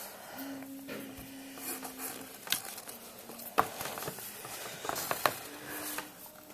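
Pencil scratching and rubbing on paper in short drawing strokes, with a few sharp clicks.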